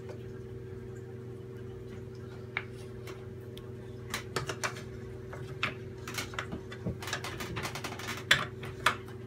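Wooden spoons tapping and scraping against a perforated metal colander as butter is pressed to squeeze out the buttermilk: irregular clicks and taps, thickest from about four seconds in, the loudest near the end, over a steady low hum.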